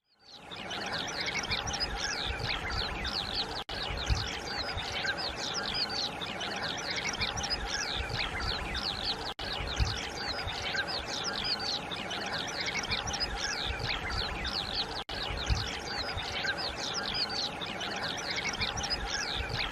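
A dense chorus of many birds chirping and calling over one another, with a low rumble underneath. The sound breaks off for an instant three times.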